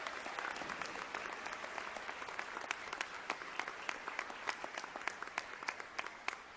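Audience applauding. The applause is dense at first, then thins into scattered individual claps over the last few seconds as it dies away.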